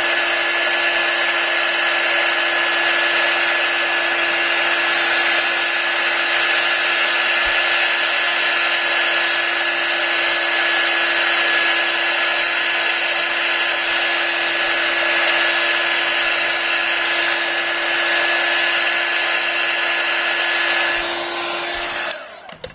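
Electric heat gun blowing hot air steadily, a rush of air with a steady motor hum, warming the adhesive that holds the iPad's cracked glass so it can be lifted. It cuts off shortly before the end.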